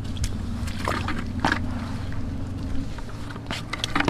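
Rubber boots stepping on wet sand, then gloved hands scraping against a barnacle-crusted rock: scattered short crunches and scrapes, heaviest near the end, over a steady low hum.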